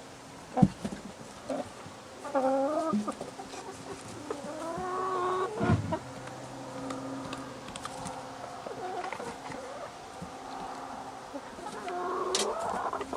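Chickens clucking and calling several times, with two sharp knocks, one about half a second in and one near six seconds.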